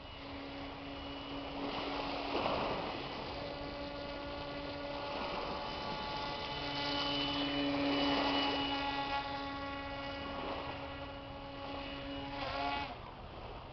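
Hand-built RC airboat's motor and air propeller running as a steady hum with overtones. Near the end the pitch drops quickly and the motor cuts off.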